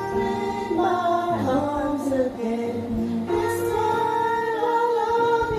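Background song with a sung melody in long held notes over accompaniment.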